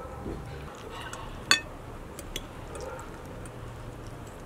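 Metal forks clinking and scraping on ceramic plates during a meal, with one sharp, ringing clink about a second and a half in and a few lighter ticks after it.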